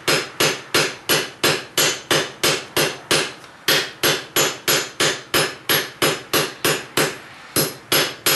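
Blacksmith's hand hammer striking hot steel on an anvil at about three blows a second, with a short break about three and a half seconds in: drawing out a long, even taper on a steel rod.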